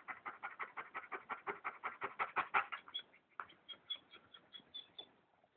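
German Shepherd panting fast and rhythmically after a run, about six breaths a second, a chuffing rhythm that sounds like a train. From about three seconds in, each breath carries a high squeak, and the panting stops about five seconds in.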